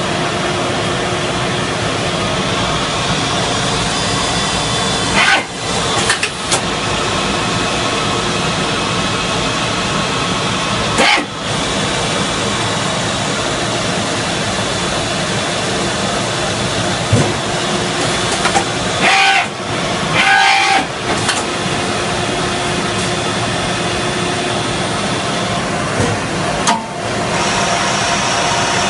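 Citizen L20 CNC Swiss-type lathe running, a steady machine noise with several held whining tones. Short sudden bursts break in about five and eleven seconds in, twice near twenty seconds, and once near the end.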